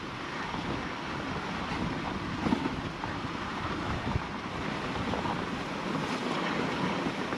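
Dog sled pulled by a team of Siberian huskies moving over packed snow: a steady rushing hiss of the runners and paws on the snow, mixed with wind on the microphone. There are a couple of faint knocks partway through.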